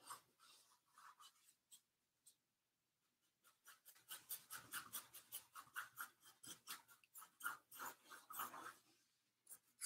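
Paintbrush scrubbing paint onto a canvas in a quick run of short back-and-forth strokes, several a second, beginning a few seconds in after a few light dabs.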